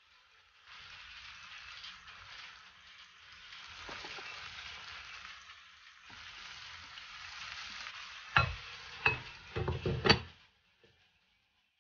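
Sturgeon fillets and onions sizzling steadily in a frying pan as pomegranate seeds are scattered over them. Near the end come a few sharp knocks and clinks, the loudest as a glass lid is set on the pan.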